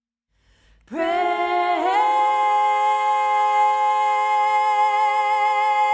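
A woman singing unaccompanied comes in about a second in on the word "pray". After a short slide in pitch she holds one long, steady note.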